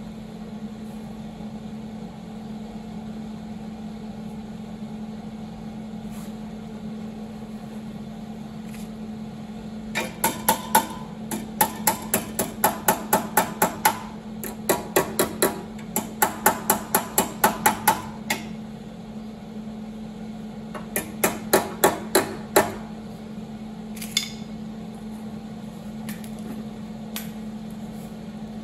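Hammer striking sheet metal in quick runs of about four blows a second, beginning about ten seconds in, then a shorter run and a single last blow, as in hammering out a car body panel. A steady low hum sits underneath.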